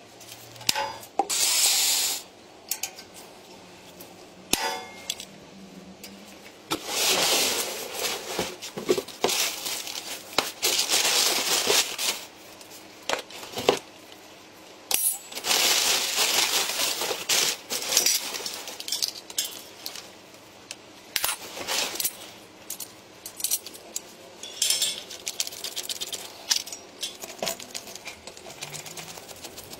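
Irregular bursts of scraping with sharp metallic clinks and clicks, like small metal parts being handled and worked by hand.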